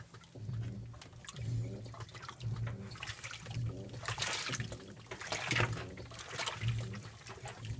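2012 LG top-load washer agitating a delicates load with its impeller: water sloshing and splashing over the motor's low hum, which comes and goes about once a second.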